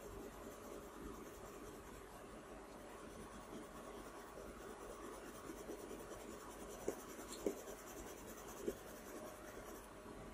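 Soft, steady scratching of a coloured pencil stroking across paper, with three brief ticks about seven to nine seconds in.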